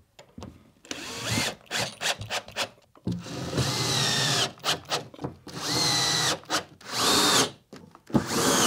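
Cordless drill-driver driving screws into OSB trim strips, the motor spinning up and running in several short bursts with pauses and small knocks of handling between; the longest burst is about a second and a half, around the middle.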